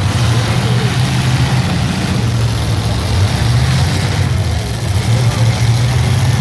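Demolition derby cars' engines running, a loud, steady low engine drone with small rises and falls.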